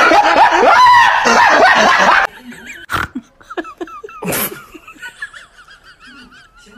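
Loud, hard laughter from two people for about two seconds, cut off suddenly. Then much quieter sound with a sharp click and a short noisy burst.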